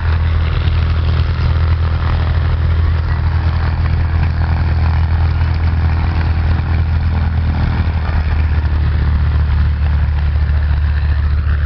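Helicopter running low over the runway: a loud, steady low engine-and-rotor drone that holds without pause.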